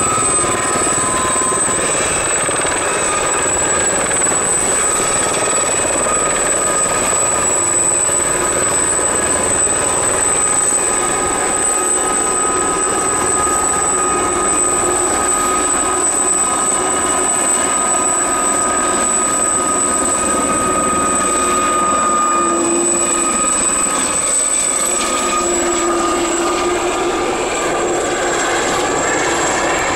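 A pair of Aérospatiale Gazelle helicopters flying overhead. A steady, high-pitched whine from their turboshaft engines and shrouded fenestron tail rotors sits over the rushing noise of the rotors.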